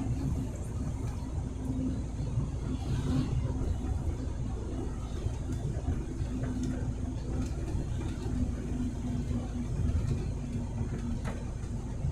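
Truck engine running steadily under road noise, a constant low drone with a held hum.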